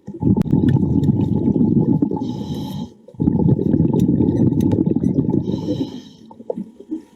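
A diver breathing underwater through a regulator: two long rumbling bursts of exhaled bubbles, each with a short hiss near its end, followed by a few soft clicks near the end.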